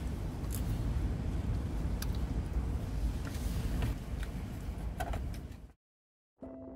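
Steady low rumble with a few light clicks, cut off abruptly near the end; faint music with held tones starts just after.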